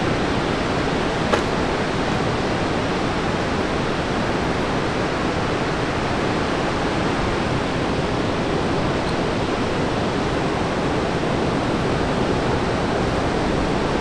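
Heavy ocean surf breaking, a steady, even rushing roar with no letup. A single short click sounds about a second in.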